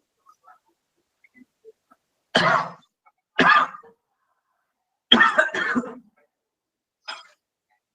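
A person coughing and clearing their throat: a few short, harsh coughs spread over several seconds, with a fainter one near the end.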